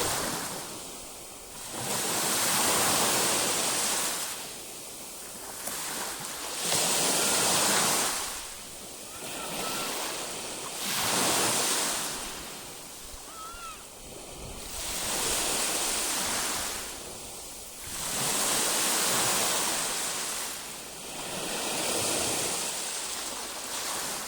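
Baltic Sea waves breaking and washing in, swelling and ebbing in a steady rhythm, about one surge every three to four seconds.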